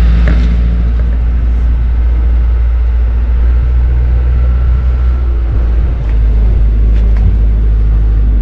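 A small ferry boat's engine running steadily under way: a loud, low, even drone, with a steady rushing noise over it.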